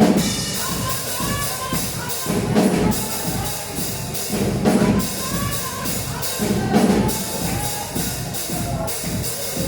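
Music with a steady percussion beat, swelling louder about every two seconds.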